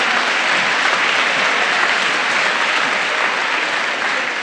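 Live audience applauding steadily in response to a comedian's punchline, easing off slightly near the end.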